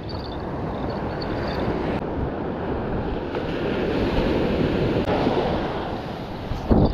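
Ocean surf breaking and washing up the beach, with wind buffeting the microphone. A short bump near the end.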